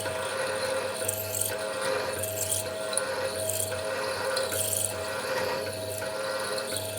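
Metalworking on an aluminium round bar, a tool going in a regular back-and-forth cycle about once a second: a short scratchy cutting burst alternating with a steady hum.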